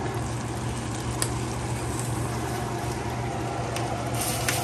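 Chorizo frying in a pan: a steady sizzle with a few sharp pops, over a low steady hum.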